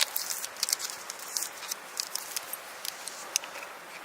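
Wood campfire crackling: irregular sharp pops and snaps, about three or four a second, over a faint hiss.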